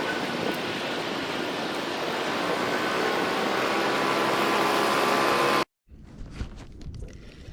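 Boat motor running at speed under a steady rush of noise. The sound cuts off abruptly nearly six seconds in, leaving much quieter sounds with a few small clicks.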